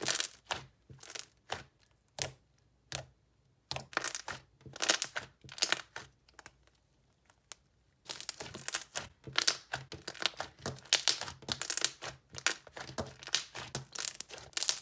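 Fluffy slime squeezed and kneaded by hand on a desk, giving off sharp sticky clicks and pops. They are scattered at first, then run together into dense crackling from about halfway on.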